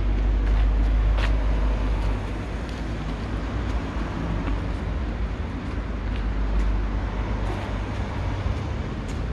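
Steady low rumble of street traffic, with a few short taps of a football being kicked across tiles.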